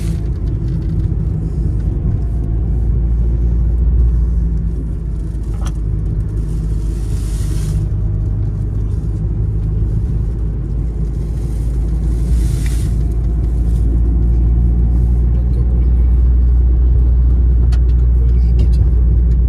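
Steady low road rumble of a car driving, engine and tyre noise heard from inside the cabin. Twice, a brief swell of hiss rises over it.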